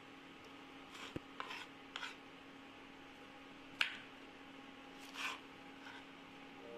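Kitchen knife slitting green chillies on a wooden cutting board: a scattering of soft taps and scrapes of the blade, the sharpest about four seconds in, over a faint steady hum.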